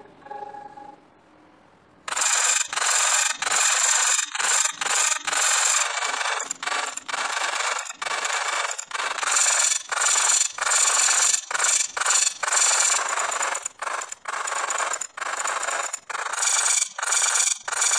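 Harsh, heavily distorted electronic noise from a digitally warped logo soundtrack, starting abruptly about two seconds in and chopped into rapid, irregular bursts. Before it, a faint tone fades out.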